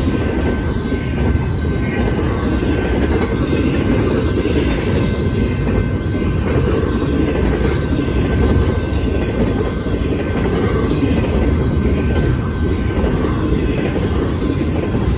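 Double-stack intermodal freight cars rolling past: a steady, loud rumble of steel wheels on rail, with a thin steady high tone above it.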